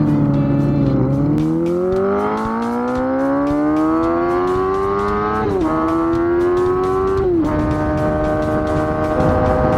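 Swapped-in 250cc four-cylinder engine in a Honda Gorilla minibike, pulling hard with its pitch rising steadily. It shifts up about five and a half seconds in and again about two seconds later, then holds a steady note.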